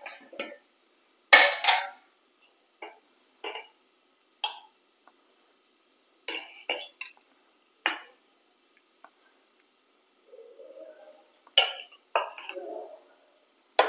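Stainless steel pot, lid and serving spoon clinking and scraping as cooked rice is scooped out and served. There are about a dozen separate clinks, the loudest about a second and a half in.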